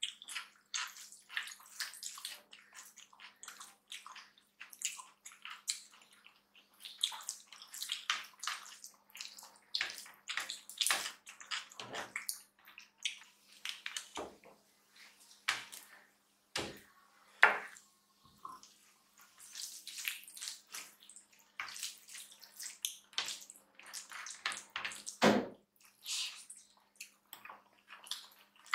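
Close-miked eating by hand: fingers squishing and mixing rice with dal and curry, with wet chewing and lip smacks, as a stream of short irregular wet clicks and a few louder smacks.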